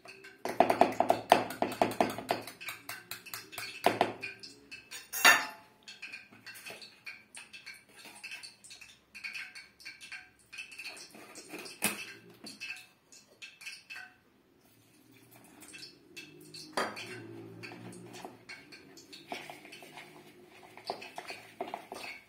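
Eggs beaten by hand in a plastic mixing bowl: a rapid run of clicks as the utensil strikes the bowl. About five seconds in comes one loud clink of the utensil set down on a plate, then scattered clicks and scraping, and more mixing in the bowl near the end.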